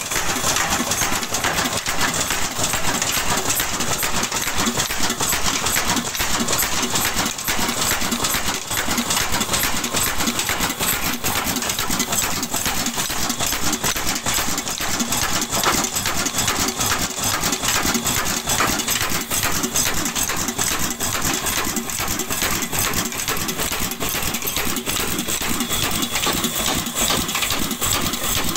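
Old Ruston Hornsby stationary diesel engine running steadily, with a fast, even mechanical clatter.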